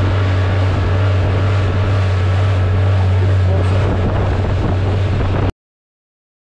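Small fishing boat's outboard motor running steadily at speed, with water rushing along the hull and wind on the microphone. The sound cuts off suddenly near the end.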